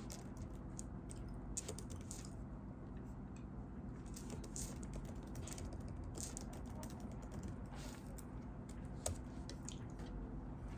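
Faint handling noises: scattered light clicks and rustles over a low steady hum, with a slightly sharper click about nine seconds in.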